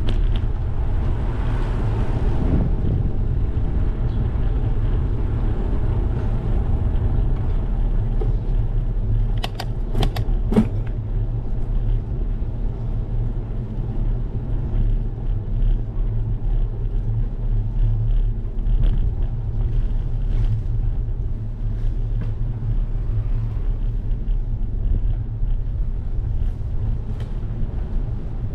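Steady low rumble of riding a bicycle with a GoPro HERO 12: wind and road vibration on the camera's microphone. A few sharp clicks or knocks come about ten seconds in.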